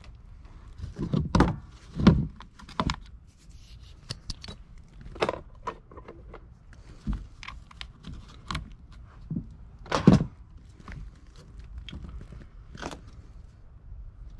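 Handling noise: hand tools and wiring being picked up, moved and set down on a plywood work board, an irregular series of knocks, clicks and rustles, the loudest knocks about a second and a half, two seconds and ten seconds in.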